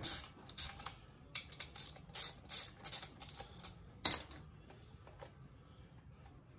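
Irregular sharp metal clicks and clinks from a 13 mm socket wrench and loose metal parts while the rocker-shaft nuts on a VW 1600 dual-port cylinder head are worked off. The clicking runs for about four seconds, with the loudest clink near the end.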